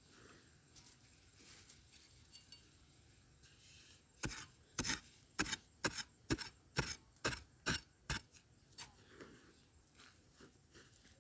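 A metal digging tool striking hard, dry soil: a run of about ten sharp, clinking strikes, two or three a second, starting about four seconds in, with faint scrapes and ticks before and after.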